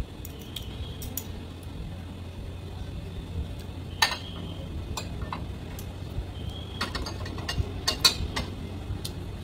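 Metal fork and spoon clinking against a ceramic plate while eating: a scattered series of sharp clinks, the loudest about four seconds and eight seconds in.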